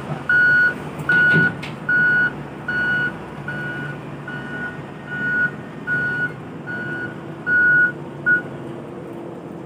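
Wheel loader's reversing alarm beeping steadily, a little more than once a second, over the low running of its engine; the beeping stops about eight seconds in.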